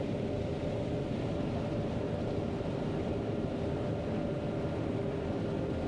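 John Deere 9500 combine running steadily while harvesting corn, heard from inside the cab as an even machinery drone with a steady hum.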